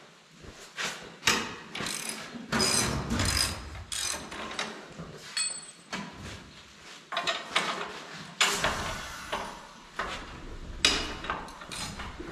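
Ratchet wrench clicking in spurts as bolts are loosened on a tractor's steel front frame, with knocks and clanks of steel parts being handled.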